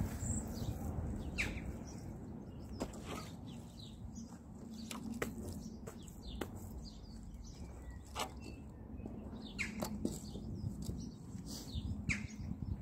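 Small birds chirping on and off over a low steady outdoor rumble, with soft scuffs and pats of gloved hands working soil in a trench.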